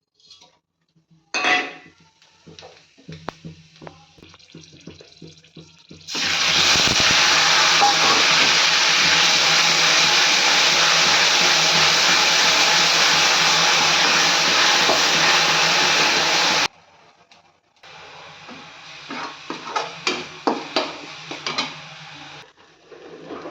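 Pots and utensils clinking and knocking, with a loud, steady rushing noise for about ten seconds in the middle that starts and stops abruptly.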